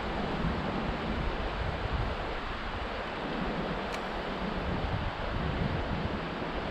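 Steady rushing of a flowing brook, with wind buffeting the microphone as an uneven low rumble. A single faint click about four seconds in.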